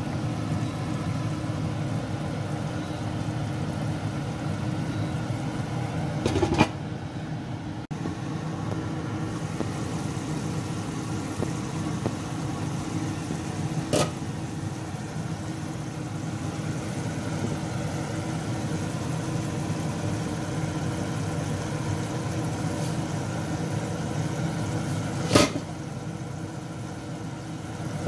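Steady whirring motor hum, with a pan of beef stew simmering under it. Three short sharp clicks break in, the loudest near the end.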